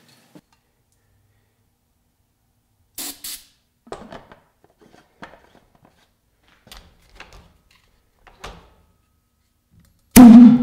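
Two short hisses of carburetor cleaner sprayed into a potato cannon's combustion chamber, some clicks and knocks of handling, then near the end one loud bang with a short low ring as the carb-cleaner vapour ignites in the chamber.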